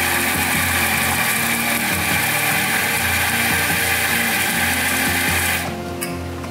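Mazzer electric espresso grinder grinding coffee beans into a portafilter, running steadily and then cutting off near the end.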